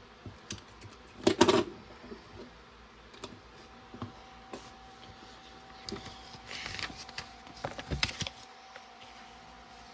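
Small plastic LEGO pieces clicking and clattering as they are handled and pressed together, with the loudest clatter about a second and a half in and a few lighter clicks scattered after.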